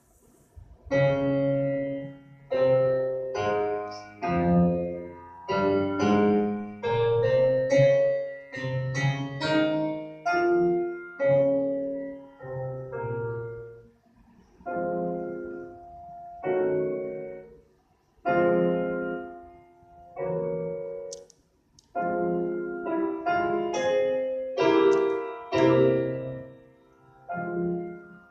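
Slow piano music: chords and melody notes struck one after another and left to die away, with short pauses between phrases.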